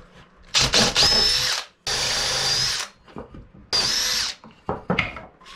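Cordless drill boring through a small piece of wood, first with a twist bit and then with a hole saw, in three short runs, each with the motor's high whine.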